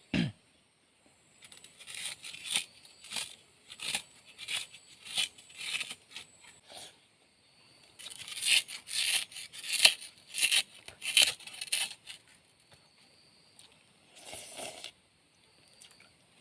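A short low thud, then a long run of rough rasping strokes, roughly two a second. The strokes come faster and louder in the middle, with one last short burst near the end.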